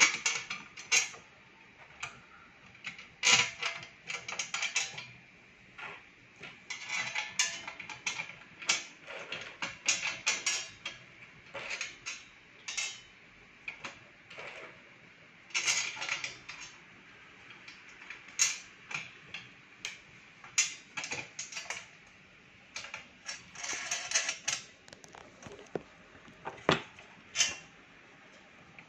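Small metal bolts and wing nuts clinking and scraping against the heat press's textured steel plate as they are fitted by hand: irregular clicks and short rattles, with a few louder knocks.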